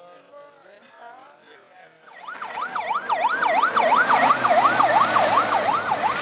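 A siren wailing in a fast up-and-down sweep, about three rises and falls a second, starting about two seconds in and growing louder.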